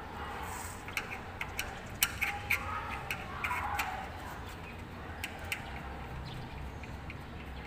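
Irregular light clicks and taps of a hand tool against long aluminium window-frame sections. They are bunched between about one and four seconds in, with a couple more later, then thin out.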